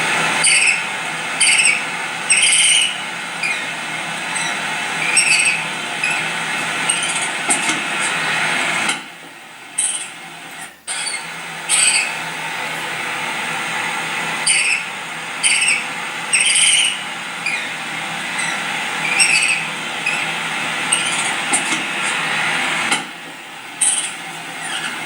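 Barn owl screeching: a long, harsh, hissing screech broken by short sharp chirping notes about once a second, with two brief pauses. It repeats in the same pattern, like a looped recording of barn owl calls played loud through a speaker.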